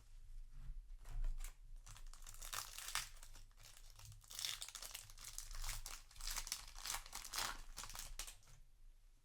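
Foil wrapper of a Yu-Gi-Oh! booster pack crinkling and tearing as it is handled and opened, in a dense run of irregular crackles that stops shortly before the end.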